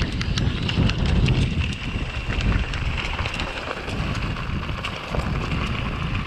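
Whitewater rushing and splashing down a steep creek rapid: a steady roar with a heavy low rumble and many small sharp splashes.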